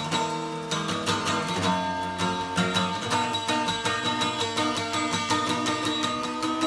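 Background music led by a strummed guitar, with a steady rhythm.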